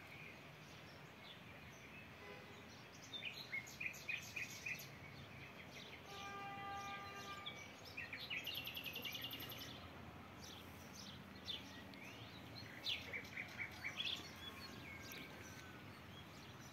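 Small birds chirping and calling over faint rural background noise, with a rapid high trill about eight and a half seconds in.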